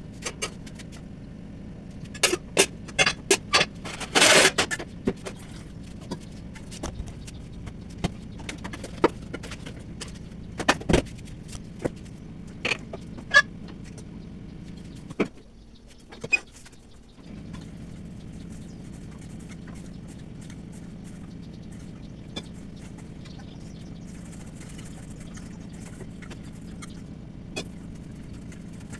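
Steel kitchen utensils clinking and knocking: a quick run of sharp knocks and a brief harsh rattle in the first few seconds, then scattered clinks, over a steady low hum.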